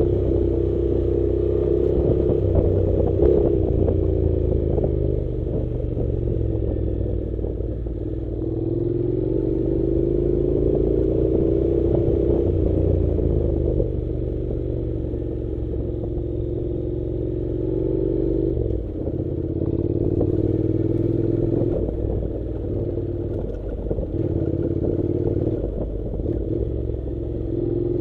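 Honda NC700's parallel-twin engine pulling at low revs on a dirt track, its pitch rising and falling every few seconds as the throttle opens and closes, with occasional knocks and rattles from the rough ground.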